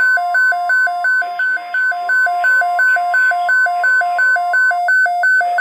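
NOAA Weather Radio 1050 Hz alert tone sounding steadily under an electronic alarm beeping in alternating high and low tones, a little under three beeps a second; the steady tone stops near the end. Together they signal an incoming tornado watch.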